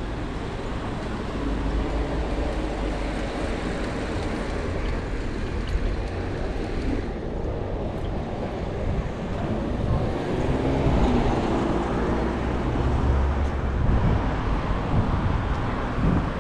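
Street traffic: cars and other road vehicles passing, a steady rumble of engines and tyres, a little louder from about ten seconds in.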